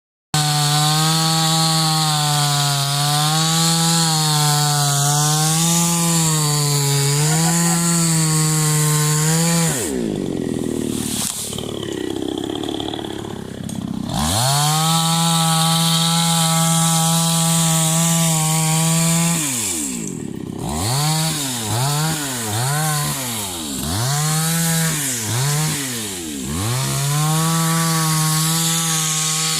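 Chainsaw running at high revs, its pitch wavering; the engine drops low for several seconds about ten seconds in, then comes back up to full speed. In the second half the revs dip and recover about once a second.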